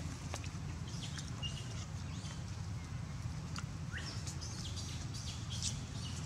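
Outdoor forest ambience: scattered short, high bird chirps and ticks over a steady low rumble, with a brief rising chirp about four seconds in.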